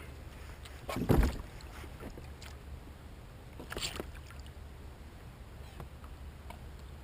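Knocks against a kayak hull while a redfish is being landed: one loud thump about a second in, then a short hissing rush near the middle and a few light clicks.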